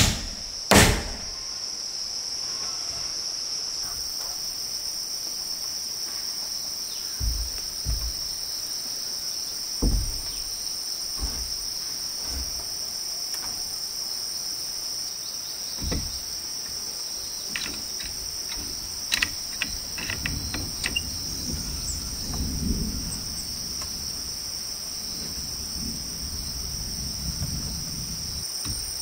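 Steady, high-pitched insect chorus, a continuous shrill drone. A few scattered knocks sound over it, one strong just after the start and a few more around the middle.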